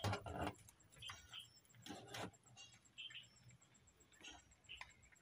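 Faint, scattered knocks and rustles of a circuit board and multimeter test leads being handled, the strongest in the first half second, with smaller ones about every second after.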